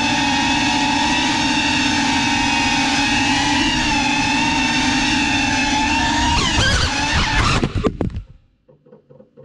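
Small FPV drone's motors and propellers whining steadily, the pitch wavering with throttle changes about six to seven and a half seconds in, then cutting off suddenly about eight seconds in; only faint ticks remain after.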